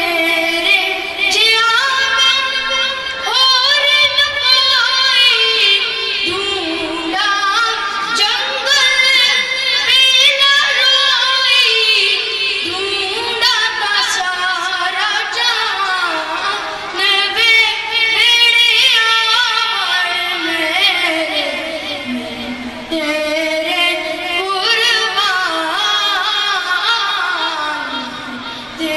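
A boy singing a devotional recitation unaccompanied into a microphone: one high voice in long, ornamented melodic phrases with short pauses for breath.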